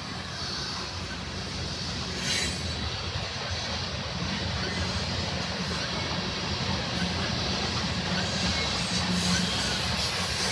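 Freight train of gondola coal cars rolling past at close range: a steady rumble of steel wheels on the rails, with a single clank about two seconds in, growing slightly louder toward the end.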